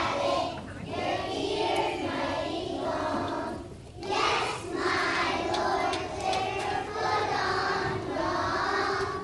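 A large group of preschool children singing a song together, in phrases, with a brief pause about four seconds in.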